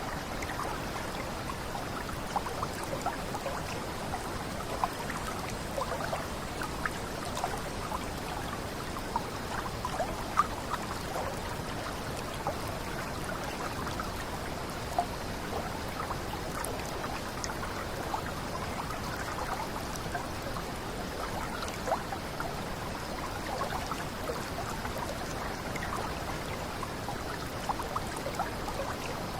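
Water running steadily over a small cascade, a constant splashing rush with many small drips and plinks scattered through it.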